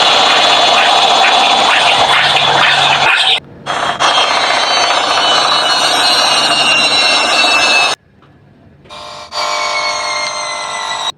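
Loud edited sound effects laid over a washing machine's spin cycle, switching abruptly: a dense noisy stretch cuts off about three seconds in, another with gliding whines runs until it drops out at about eight seconds, and a pitched, buzzing sound starts suddenly near the end.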